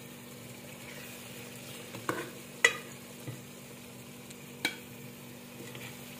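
Metal spoon clinking three times against an aluminium cooking pot as fried potatoes in masala are lifted out, the middle clink the loudest. Behind it the oil and masala sizzle faintly and steadily.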